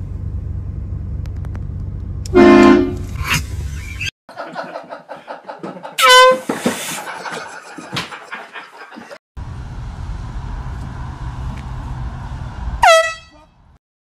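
Three short, loud air-horn blasts in separate clips, about two, six and thirteen seconds in; the last two start with a quick drop in pitch. A steady low rumble runs under the first and last.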